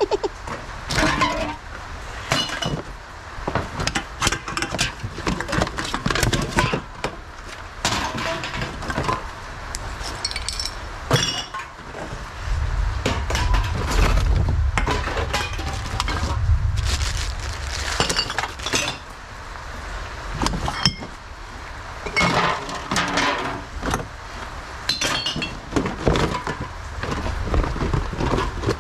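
Aluminium drink cans and glass bottles clinking and clattering, tossed one after another onto a heap of collected cans and bottles. There is a low rumble for a few seconds about midway.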